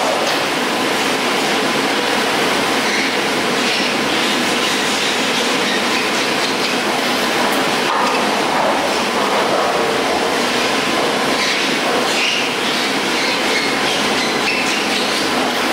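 Detachable chairlift running: a steady mechanical rumble with faint rattling from the haul rope and chairs passing over the rollers.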